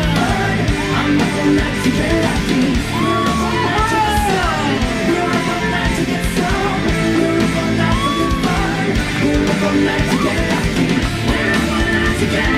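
Loud rock music with guitar playing.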